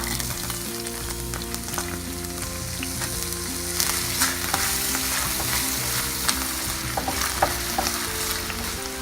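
Chopped shallot sizzling in hot oil in a frying pan, with short scrapes and clicks of a utensil stirring it.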